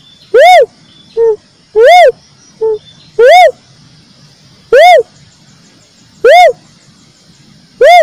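Recorded lure call of a cuckoo-dove (uncal). It gives six loud, whooping notes that rise and fall in pitch, evenly repeated about every second and a half. Two shorter, lower notes fall between the first three.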